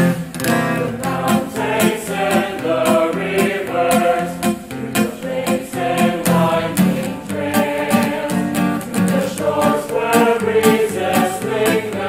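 A song: voices singing a slow melody over strummed acoustic guitar.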